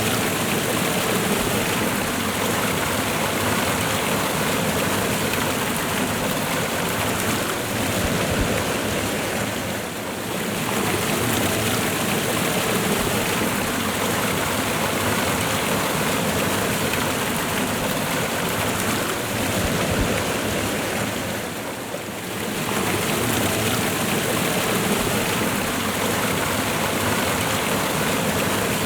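Waterfall and running river water rushing steadily, dipping briefly twice, about ten and twenty-two seconds in.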